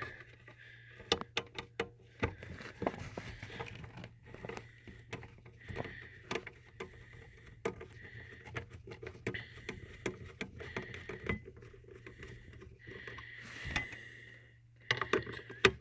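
A 7 mm socket on a long extension backing out the screws of a plastic PCM cover: irregular clicks and scrapes of metal tool on screw heads and plastic.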